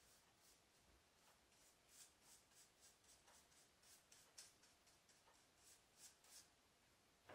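Very faint strokes of a paintbrush on a cardboard toilet-paper roll, soft swishes about two a second.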